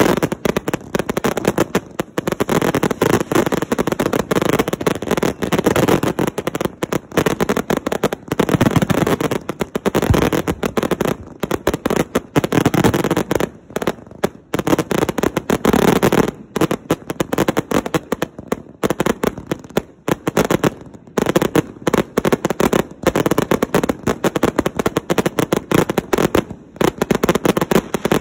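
Several 500-gram consumer firework cakes firing together: a dense, continuous barrage of launch thumps, aerial bangs and crackle, many a second, with a few brief lulls.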